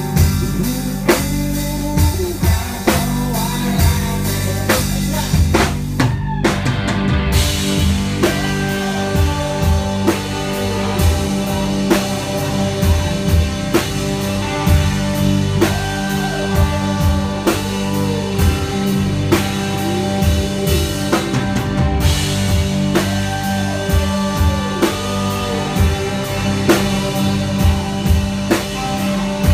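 Live country-rock band playing an instrumental break: a drum kit keeps a steady beat under distorted electric guitars, with gliding slide notes. The cymbals and high end drop out briefly about six seconds in.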